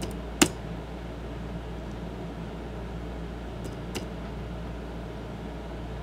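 Steady low hum and background noise of a room, with a sharp click about half a second in and a fainter click about four seconds in.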